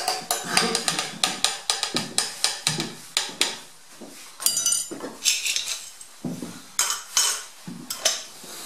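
Metal spork scraping and clinking against a metal camping pot while stirring porridge: a quick run of clinks, about three or four a second, then slower, scattered knocks with a brief metallic ring about four and a half seconds in.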